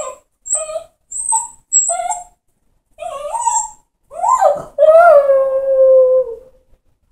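Dog left home alone crying in distress: a run of short whining yelps about every half second, then a longer wavering whine, then one long howl from about four seconds in, the loudest sound, slowly falling in pitch as it fades.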